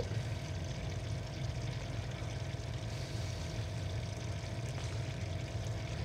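DDC Plus pump driving coolant around a small custom water-cooling loop: a steady hum with the sound of water moving as air bubbles circulate, a sign the loop still holds air despite having been pre-bled.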